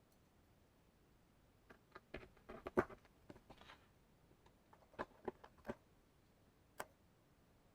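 Irregular small clicks and taps of tools and parts being handled on a workbench while a MacBook is worked on: a busy cluster about two seconds in, then a few separate clicks.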